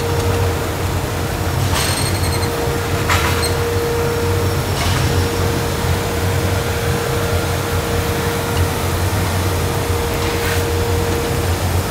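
Steady drone of conveyor machinery on a wood-flooring production line: a constant low hum with a steady whine over it. A few sharp clacks come about two and three seconds in and again near the end.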